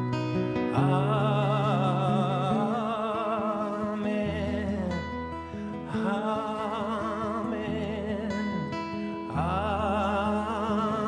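Male voice singing long, held "Amen" notes with vibrato over a strummed acoustic guitar: three drawn-out sung phrases, each separated by a short stretch of strumming.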